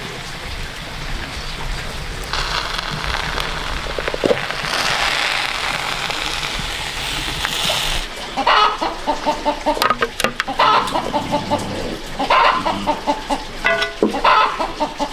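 Chickens clucking in repeated short calls through the second half, after a steady hiss in the first half.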